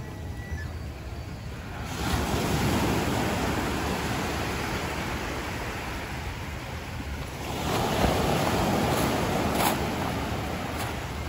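Small ocean waves breaking and washing up a sand-and-pebble beach, the surf swelling twice: about two seconds in and again about eight seconds in. Wind on the microphone adds a low rumble.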